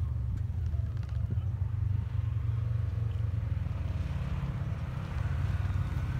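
Side-by-side UTV engines running: a steady low engine rumble, with a rising engine note joining in the second half as the machines come down the hill.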